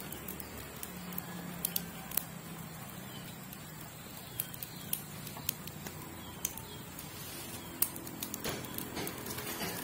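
Rustling of netting and light clicking of wire hoops as a stack of collapsible crab traps is handled and unfolded, with scattered sharp crackles, the loudest about 8 seconds in.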